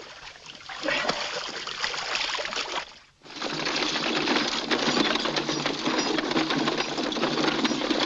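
Water sloshing and splashing in a wooden trough, then, after a break about three seconds in, the quick, dense clatter of several horses' hooves on a dirt trail.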